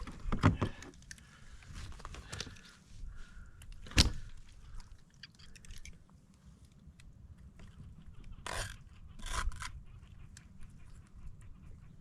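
Knife and hand handling sounds while cleaning a coho salmon: scattered scrapes and crunchy cuts, a sharp knock about four seconds in, and two brief rustling bursts later on.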